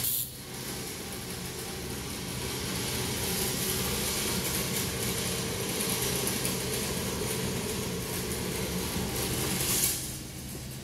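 TIG welding on exhaust tubing: a steady hiss of the arc over a low electrical hum.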